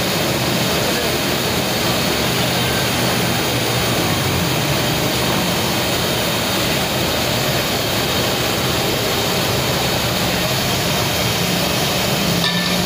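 Steady, loud rushing noise with a low hum underneath, unchanging throughout.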